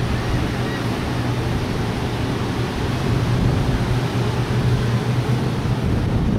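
Wind buffeting the microphone over the steady wash of surf on the beach, a continuous low rumble and hiss.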